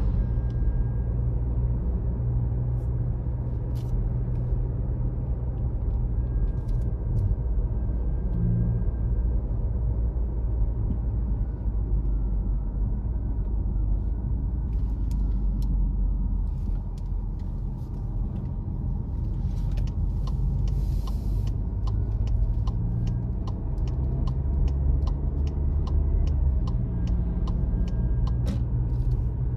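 A car driving at road speed: a steady low rumble of engine and tyre noise. A series of faint, evenly spaced ticks runs through the second half.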